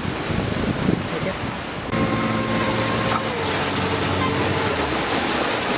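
Wind buffeting the microphone over rushing waves, then from about two seconds in the steady drone of the fishing boat's engine, which dips slightly in pitch a moment later.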